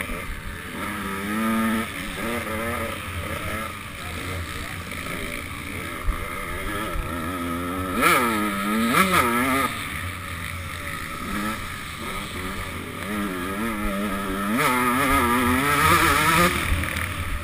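KTM SX125 two-stroke motocross engine revving hard and shifting up and down through the gears, its pitch rising and falling repeatedly, with sharp climbs about halfway through and again near the end.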